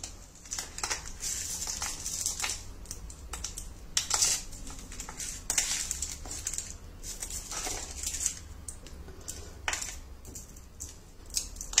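Sesame-and-jaggery brittle (til patti) snapping and crackling in irregular sharp cracks as it is broken by hand into pieces. The crisp snapping shows it has set fully crisp.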